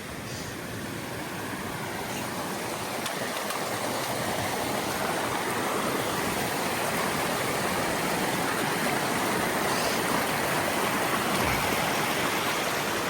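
Rushing water of a mountain creek, a steady hiss that grows gradually louder.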